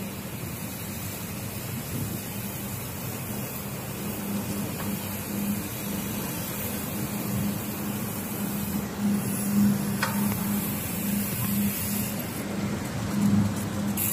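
Steady rush of wind and road noise picked up by a camera riding on a moving bicycle, with city traffic in the background.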